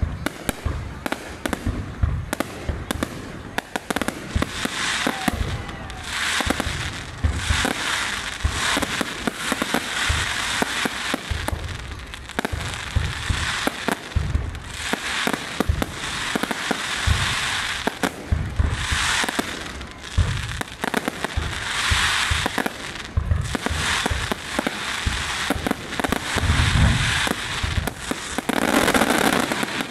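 Aerial fireworks display: a rapid, continuous run of shell bursts and bangs, with crackling between them, heaviest near the end.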